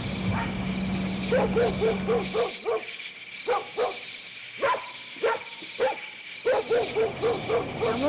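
A dog barking in quick runs of about four or five barks a second, with a few single barks between, over crickets chirping steadily. A low steady hum stops a couple of seconds in.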